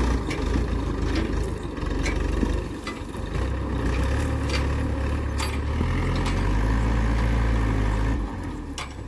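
Mahindra tractor's diesel engine working under load as it hauls a trolley full of wheat over rough ground. The engine picks up about a third of the way in, holds steady, then eases off near the end, with scattered knocks and rattles.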